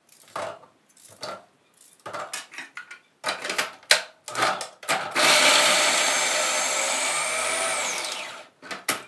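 Electric kitchen food processor chopping onions: a loud steady motor whine for about three seconds, its pitch dropping away as it switches off. Before it, knocks and clatter as the onion pieces go into the jug and the jug is fitted.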